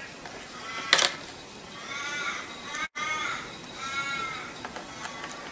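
A sharp click about a second in, then a bird calling twice in the background, about two seconds apart, with harsh, crow-like calls.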